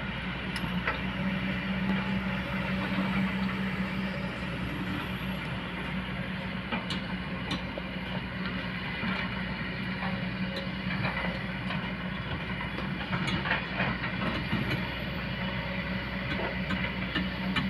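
Kobelco hydraulic excavator working: its diesel engine runs with a steady hum, with scattered clanks and knocks throughout.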